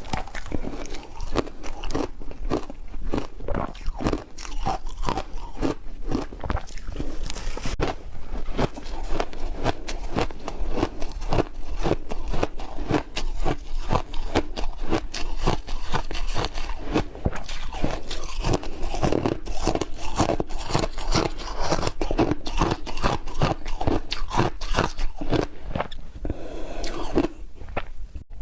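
Close-miked biting and chewing of crunchy food, a dense run of crisp crunches several times a second.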